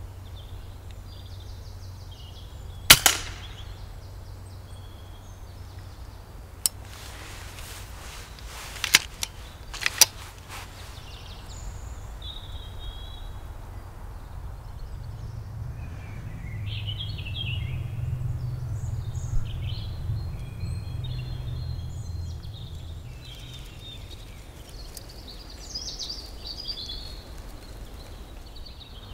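Moderated FX Impact Mk2 PCP air rifle, a sub-12 ft-lb .177, firing once with a sharp crack about three seconds in, followed by a few lighter clicks and snaps around nine to ten seconds in.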